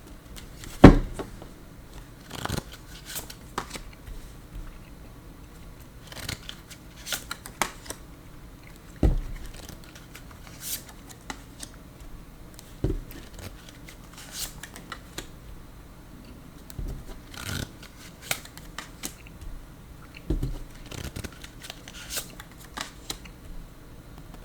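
Tarot cards being shuffled, drawn and laid down on a table: irregular soft snaps, slides and taps of card stock, with a few heavier knocks, one about a second in, one near the middle and one around three-quarters through.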